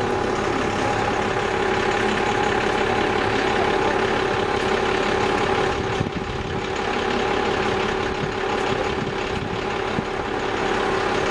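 A steady mechanical hum with a constant droning tone, like an engine or machine running at idle, dipping briefly about six seconds in.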